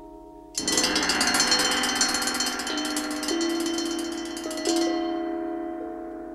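A rack of hanging cowbells struck in a fast roll that starts suddenly about half a second in and runs for about four seconds. Their clanging rings on, with one more stroke near the end of the roll.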